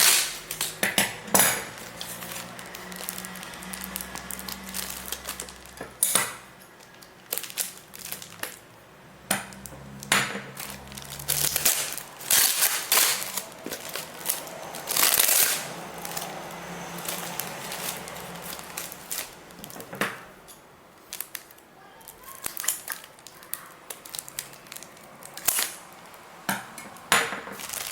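Smartphone box and its packaging being opened and handled by hand: scattered clicks, knocks and rustling of the box and its inner parts.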